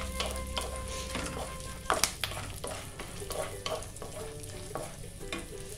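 Melon seeds frying in a karahi, stirred with a wooden spatula: the seeds rattle and the spatula scrapes the pan in quick strokes over a light sizzle, with one sharper knock about two seconds in.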